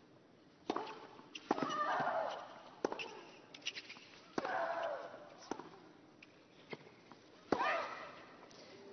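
Tennis rally: a ball struck back and forth with racket hits about every second or so. Every other hit brings a long, loud shriek from the player, three in all, with quieter stretches of court noise between.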